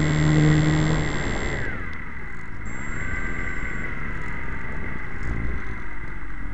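Small electric RC foam plane's motor and propeller running steadily, then throttled back about two seconds in; afterwards a rushing wind noise with a whine that slowly falls in pitch as the plane glides down to land.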